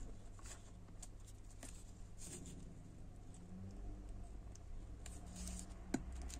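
Faint handling rustles and small clicks as a sensor cable is worked with the fingers, then one sharp snip about six seconds in as side cutters cut off excess braided copper shielding.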